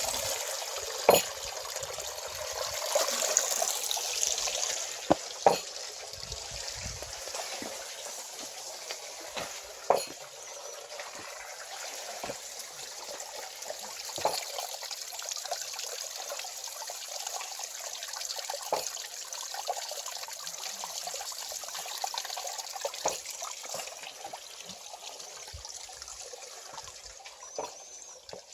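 A small water wheel turning in a valley stream: water rushing and splashing steadily, with a few sharp clicks scattered through it.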